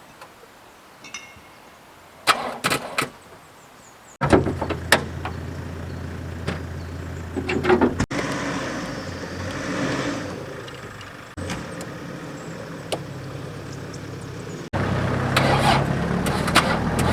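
A few sharp clicks, then repeated attempts to start a Ford Ranger ute on a flat battery, even with a jump pack connected: the starter turns but the engine does not fire. The battery is weak, and the owner blames the cold night. The sound comes in several stretches that start and stop abruptly, the loudest near the end.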